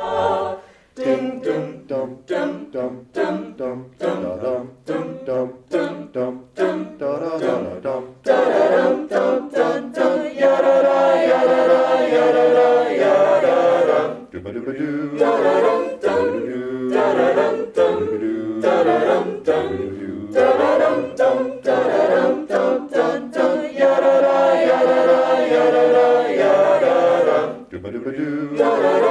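Small mixed group of voices singing a Christmas carol medley a cappella: short, separate staccato notes for the first several seconds, then long held chords from about eight seconds in.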